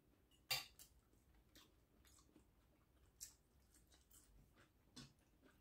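Quiet eating sounds: faint chewing with a few short, sharp clicks, the loudest about half a second in and two smaller ones later.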